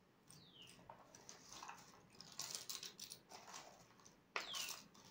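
Loose cardboard jigsaw puzzle pieces rattling and rustling as a hand stirs and scoops through them in their box. A few short falling bird chirps sound in the background, the loudest about four and a half seconds in.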